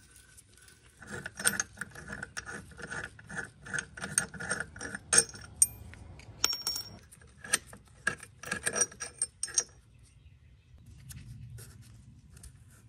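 Metal hand tool clicking and clinking on the bolts of the factory transmission mount bracket as they are loosened and the bracket is taken off. There is a run of ringing clicks at about three a second with a couple of sharper clanks, then a second run of clicks, and the clicking stops about three seconds before the end.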